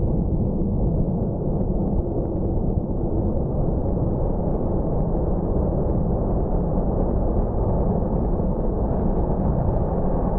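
Military jet engines at takeoff power: a loud, steady, deep rumble.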